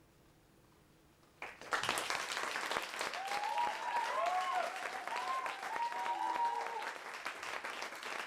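Audience applause breaking out suddenly about a second and a half in, after a hush, with cheering voices rising over the clapping.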